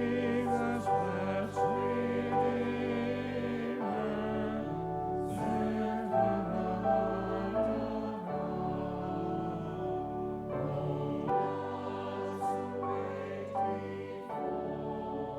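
Slow church music: sustained chords that change every three to four seconds, with choir voices.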